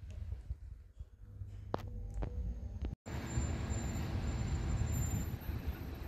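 Low hum inside a moving lift with a couple of light clicks, then an abrupt cut about three seconds in to steady city street traffic noise.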